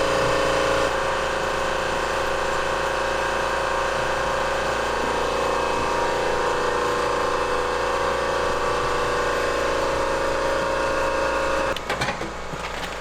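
Electric power tool motor running steadily with a constant whine, cutting off near the end, followed by a few clicks.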